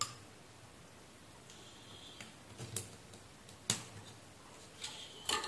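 Several sharp plastic clicks and light scrapes as a craft knife blade and a thin probe pry at the latches of a small digital ampere meter's plastic case; the loudest click comes near the end.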